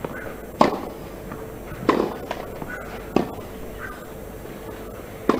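Tennis ball struck by rackets in a baseline rally on a clay court: four sharp hits about a second and a quarter apart.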